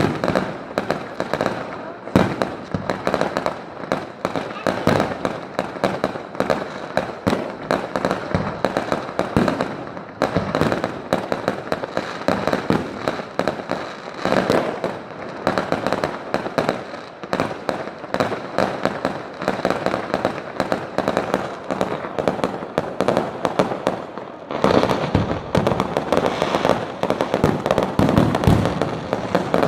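Fireworks going off in a rapid, continuous run of bangs and crackles, several a second, thickening into a denser, louder barrage about 25 seconds in.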